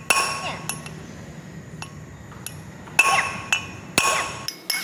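Ball-peen hammer striking a new wheel stud on a Daihatsu Charade brake drum hub, driving the stud in: sharp metal-on-metal blows with a short ringing clang. Three heavy blows, one just at the start, one about three seconds in and one about four seconds in, with lighter taps between.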